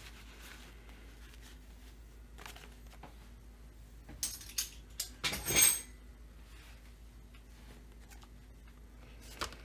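Small metal clinks and clatter of tools or parts being handled on a workbench: a quick run of clicks about four to six seconds in, the loudest near five and a half seconds, and one more click near the end.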